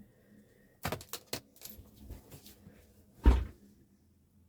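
A few light clicks and knocks of things being handled on a work surface, then one loud thud about three seconds in.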